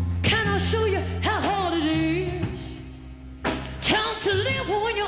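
A woman singing a slow soul-blues ballad live with her band, her voice bending and wavering through two long phrases over sustained low chords, with a short break in the voice near the middle.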